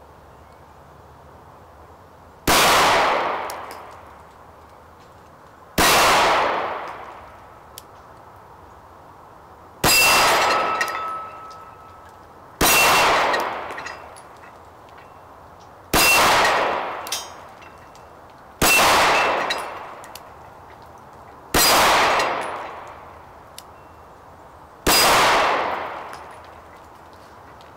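A 1906 American Eagle Commercial Luger pistol in 9mm firing eight slow aimed shots, about three seconds apart, each with an echo that dies away over a second or so. The eighth shot empties the magazine and the toggle-lock action stays open.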